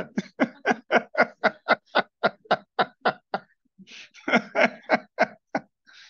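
A man's voice singing a rhythmic string of short, clipped nonsense syllables, about five a second, as a mock imitation of rock singing. After a brief pause, a quicker run of syllables follows.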